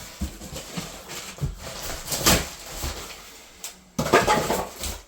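Cardboard and foam packaging being handled and pulled from around a newly unboxed 3D printer: irregular rustling, scraping and light knocks, with a louder scrape about two seconds in and a busier stretch of handling near the end.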